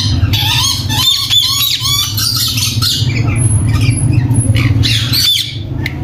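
Caged parrots squawking in repeated short calls, over a steady low hum.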